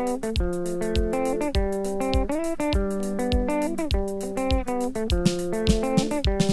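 Instrumental section of a Zimbabwean band song: picked electric guitar lines with bent notes over bass guitar and a steady drum beat. The drums grow busier near the end.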